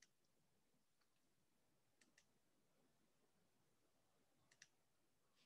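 Near silence, with a few faint clicks: one at the start, a pair about two seconds in, and a pair near the end.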